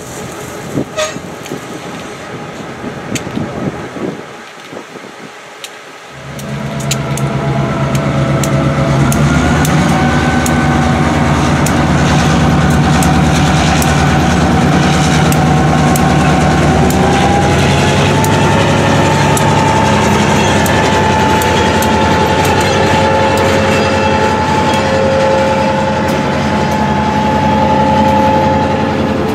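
CSX SW1001 switcher's EMD 8-cylinder 645 diesel loading up about six seconds in, then running loudly and steadily as the locomotive pulls a cut of boxcars past, with steady whining tones over the engine.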